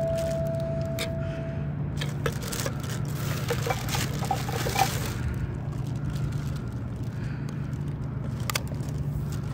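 Plastic bag rustling and crinkling with small scrapes and clicks as it is handled, mostly in the first half, over a steady low hum.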